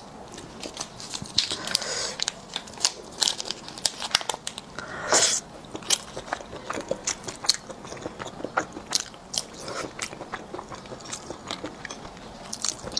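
Plastic vacuum-sealed snack packet of small roasted eggs crinkling and being torn open, with many sharp crackles and one loudest rip about five seconds in. Near the end an egg is bitten into.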